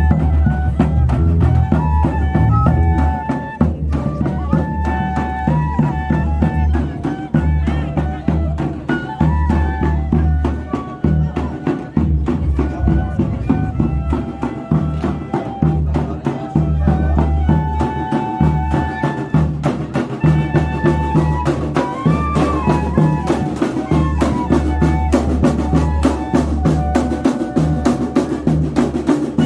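Pífano band playing: cane fifes carrying the melody over a loud, steady beat of bass drum and snare.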